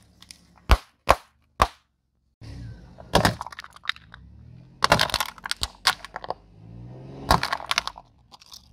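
Balloons bursting under a car tyre, three sharp pops within about a second, then hard plastic cups cracking and splintering in several loud clusters as the tyre rolls over them, with the car's engine running low underneath.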